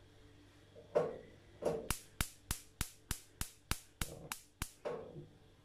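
Gas stove's spark igniter clicking, about ten sharp clicks at roughly three a second, after a couple of softer knocks. The burner is slow to catch, so slow the cook almost thought the gas had run out.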